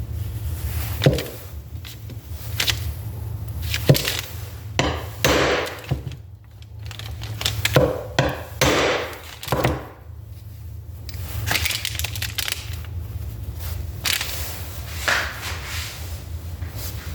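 Irregular sharp knocks and scraping of metal parts being worked on a Toyota 4A-FE distributor as a part is driven into the housing a little at a time, over a steady low hum.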